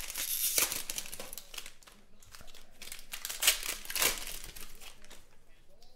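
Foil trading-card pack wrappers crinkling and tearing as Panini Prizm football packs are ripped open by hand. The scratchy rustles come in bursts, loudest in the first second and again around three and a half to four seconds in.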